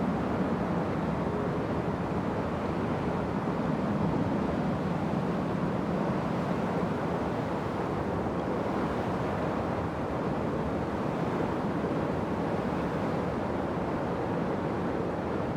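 Wind blowing through a forest: a steady, low rushing noise that swells and eases slightly.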